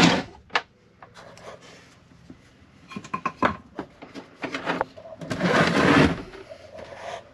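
Heavy house batteries being lifted out of a plywood battery box: scattered knocks and clunks of the battery cases against the wood, then a scrape about a second long as a battery slides across the plywood a little past halfway through.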